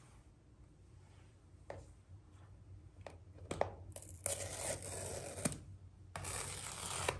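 Paper pull-tab seal strips being torn off an iPhone box: a few light handling clicks, then two tearing rips, the first about four seconds in lasting about a second and a half, the second a little after six seconds in.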